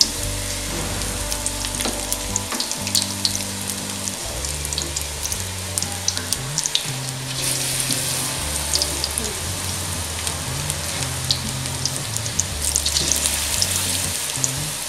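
Onion pakoras in gram-flour batter deep-frying in hot oil in an aluminium wok. There is a steady sizzle full of small crackling pops as more batter is dropped into the oil.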